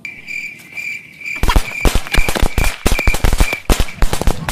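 Firecrackers going off on the ground in a rapid, irregular run of sharp bangs, starting about a second and a half in and lasting about three seconds. A high, pulsing tone runs underneath from the start.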